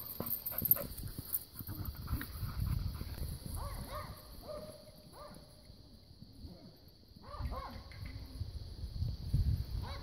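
Young border collie barking in short clusters of yelping barks: at the start, again around four seconds in, and again near eight seconds. Low rumbling bumps come in between.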